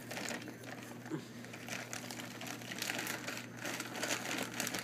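Pet rabbit eating hay from a bowl: quick, irregular crunching and rustling as it chews and noses through the dry strands.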